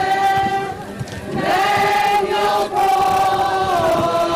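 A group of voices singing a slow hymn together, with long held notes that step from one pitch to the next and a short break about a second in.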